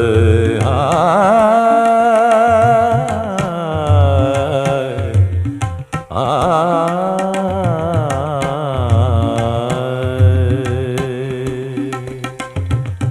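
Carnatic-style film song music: two long, ornamented melodic phrases whose pitch wavers and slides, over a low pulsing beat, with a short break about six seconds in.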